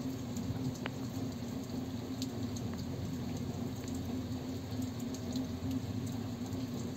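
Light rain pattering, with scattered small drop ticks, heard from inside a motor grader's cab over a steady low hum.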